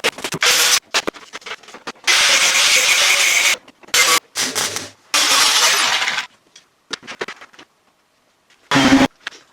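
Car-restoration workshop tool noise cut into abrupt, sped-up snippets: two long stretches of loud, harsh hiss-like noise, short bursts and clicks between them, and a brief low burst near the end.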